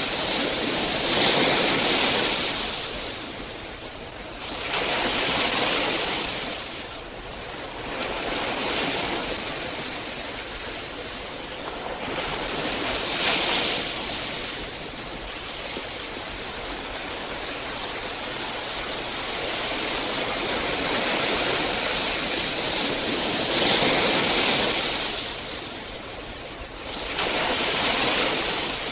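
Ocean surf breaking and washing up the shore, swelling and fading every few seconds.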